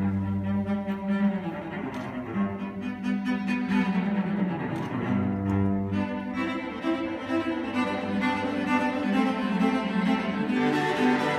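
Two cellos playing a bowed duet, with sustained notes in a low part and a higher part moving together.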